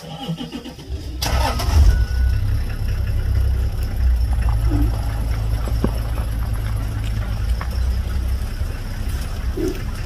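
Game-drive vehicle's engine starting about a second in, then running with a steady low rumble.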